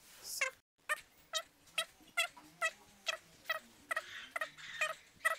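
A man's voice counting lunge repetitions, seven through eighteen, sped up so each number comes out as a short, high-pitched, chirp-like call, about two counts a second.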